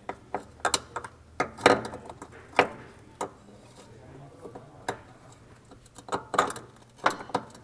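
Irregular clunks and clicks of a new rubber-and-metal engine mount being maneuvered and seated against the car's subframe by hand.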